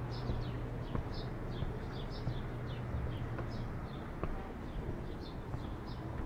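Small birds chirping: short, high, falling chirps, several a second, over a steady low hum.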